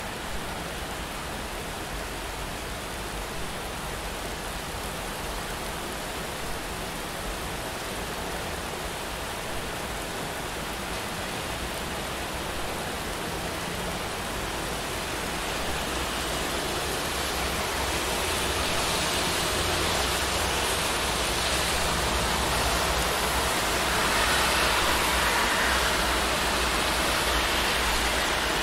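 Steady rain on a city street with a low traffic rumble underneath; in the second half the hiss swells and fades again over about ten seconds, as a car's tyres pass on the wet road.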